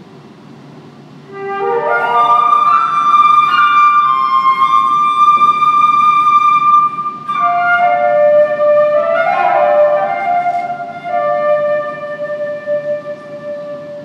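Solo concert flute playing a slow, unaccompanied melody. About a second in, a quick upward run leads to a loud long-held high note. A second phrase then falls and settles on a held lower note that softens near the end.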